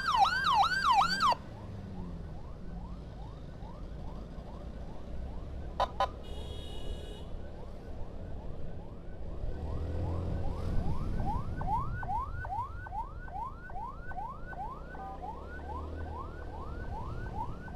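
Ambulance siren on a fast repeating yelp, each note a quick rising sweep, about three a second. It is loud at first, drops suddenly about a second in and carries on fainter, over a low road and engine rumble. A short tone sounds about six seconds in.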